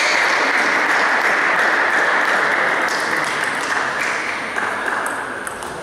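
Spectators applauding after a point in a table tennis match, a steady patter of clapping that thins out near the end.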